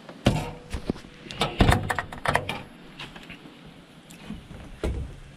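Steel door of a Masterbuilt Sportsman Elite propane smoker being shut and latched: a string of metal clanks and clicks, loudest about a second and a half in, with one last knock near the end.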